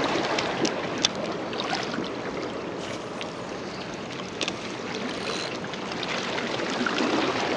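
Water washing against the jetty, a steady rushing hiss with a few faint clicks.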